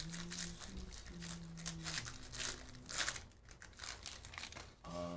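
Foil wrapper of a Bowman baseball card pack crinkling and tearing as hands rip it open and slide the stack of cards out, in a run of short crackly rustles.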